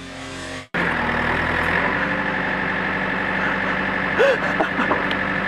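Music stops abruptly under a second in, then a backhoe's diesel engine runs steadily with a constant high whine. A few short squeaky rising-and-falling sounds come near the end.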